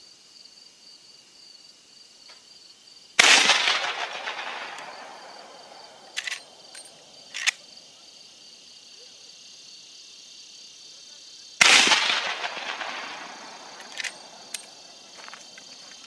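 Two rifle shots from a Marlin 1895 lever-action in .45-70 Government, about eight seconds apart, each echoing and dying away over a couple of seconds. A few seconds after each shot come two sharp metallic clicks as the lever is worked to eject the spent case and chamber the next round. Insects chirr steadily in the background.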